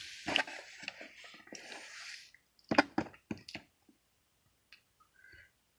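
Handheld handling noise: rustling for the first two seconds, then a quick cluster of clicks and light knocks, and a few faint ticks after it.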